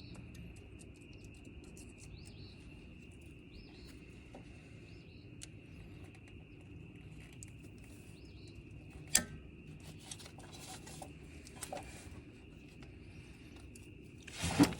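Quiet outdoor background with a steady high drone, broken by scattered small clicks and taps of hand tools being handled, a sharp click about nine seconds in and a louder clatter near the end.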